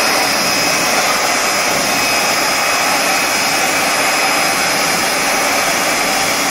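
Vacuum cleaner run as a blower, its motor running steadily and loud air rushing out of the hose nozzle, with a faint high whine on top.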